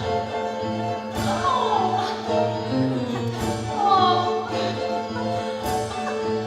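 Music: a stage-musical song sung by voices over instrumental accompaniment.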